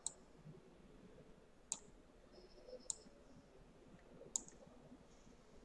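Four faint computer-mouse clicks, spaced about a second or more apart, over near silence.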